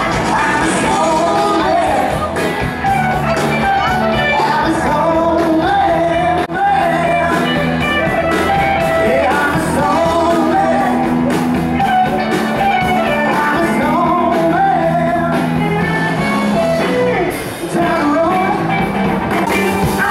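Live rock band playing, a lead singer over electric guitar and drums, heard loud and steady from the crowd in front of the stage.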